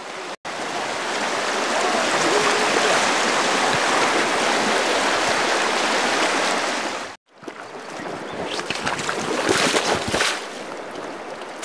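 Shallow stream water rushing steadily over riffles. It breaks off sharply about seven seconds in, then resumes with scattered knocks and rustles.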